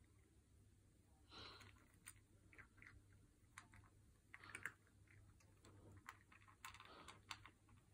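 A cat eating dry cat biscuits from a metal bowl: faint, irregular crunches and clicks as she chews.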